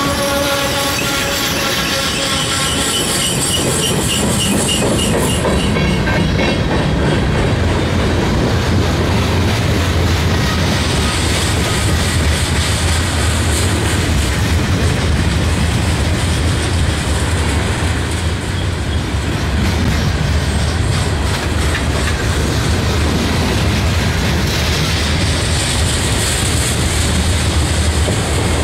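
Freight cars rolling past: steel wheels clattering over the rails with a steady low rumble, and a high-pitched wheel squeal in the first few seconds.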